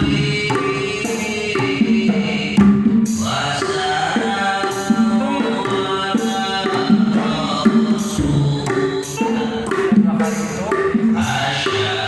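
A male voice singing sholawat, an Islamic devotional song, in a melismatic chant over a steady hand-drum rhythm.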